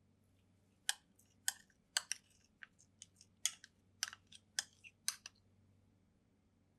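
An irregular run of about a dozen sharp clicks and taps of hard objects, starting about a second in and stopping a little after five seconds, over a faint low hum.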